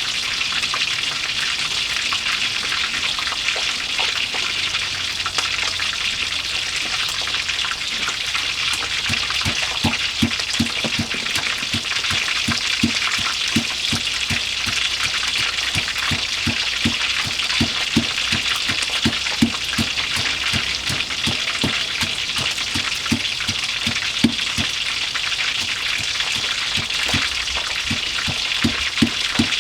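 Fish frying in hot oil: a steady sizzle, with short low pops about twice a second from about nine seconds in.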